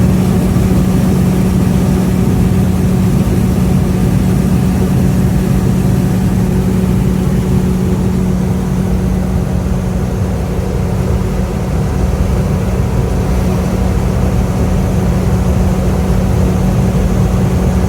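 Combine harvester running steadily while cutting corn and unloading into a grain buggy, heard from inside the cab: an even, loud drone with a constant low hum.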